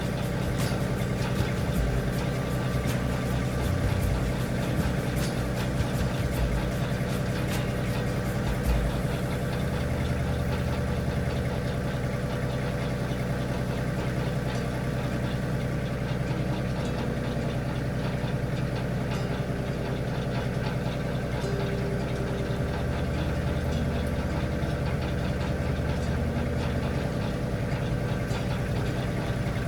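Tractor engine idling steadily, with irregular knocks and clatter during the first nine seconds or so.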